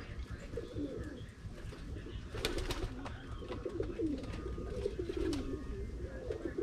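Pigeons cooing: low, warbling coos repeating and overlapping, with a couple of sharp clicks about two and a half seconds in.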